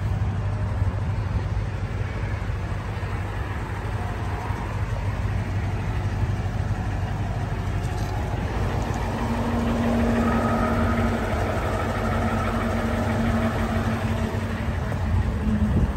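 2017 Toyota Tundra's V8 engine idling steadily, heard from low down beside the truck near its exhaust.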